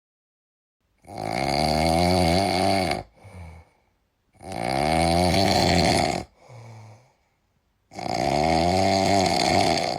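Pig sound effect: three long pitched calls of about two seconds each, separated by silence. The first two are each followed by a short, quieter breath-like sound.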